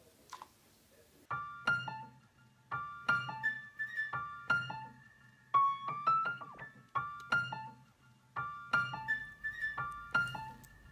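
Background piano music: a light melody of separate struck notes, each ringing and fading, starting about a second in.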